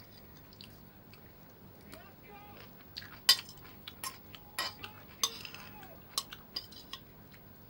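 Scattered sharp clicks and clinks of utensils and food packaging knocking against a plate or container while a meal of fried chicken is eaten, the loudest a little after three seconds in. Faint voices sound in the background.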